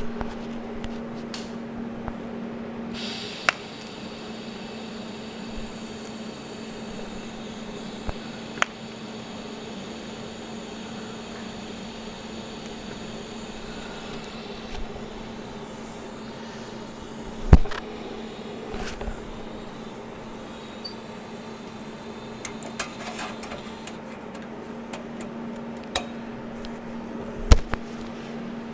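TIG welder arc hissing steadily while tack-welding a ring onto a stainless steel fuel tank, over a steady electrical hum. A few sharp clicks of metal on metal fall during it.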